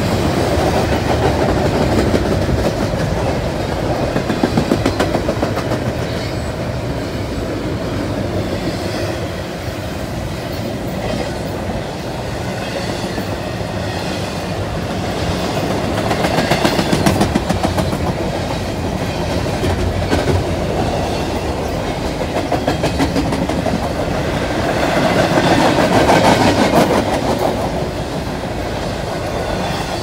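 Fast CSX double-stack intermodal freight train passing close by: steel wheels rumbling and clattering clickety-clack over the rail joints, swelling louder a few times as the car trucks roll past.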